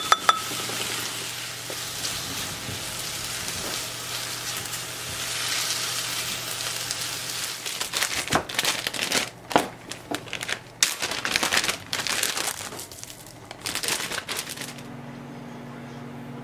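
Chicken, green onion and mushrooms sizzling in a frying pan, with a couple of sharp knocks at the start. About halfway in, a plastic zipper bag is handled and crinkles in irregular bursts. Near the end only a low steady hum remains.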